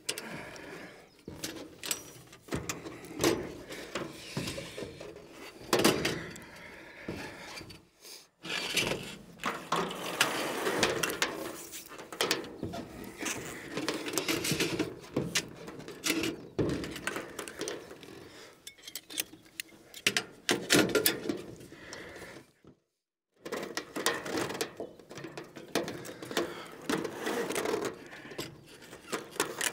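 Irregular metallic clicks, knocks and clatter of tools and mounting hardware being worked on an aluminium solar-panel rail fixed to a corrugated metal roof. The sound cuts out completely twice, briefly.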